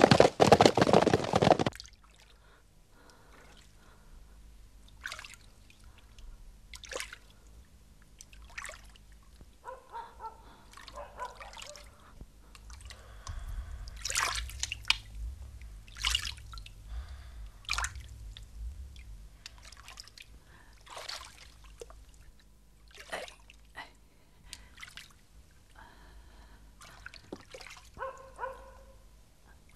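Bathwater dripping and lightly splashing in a tub as someone bathes: scattered single drips and small splashes. This follows a loud burst of galloping horses in the first two seconds.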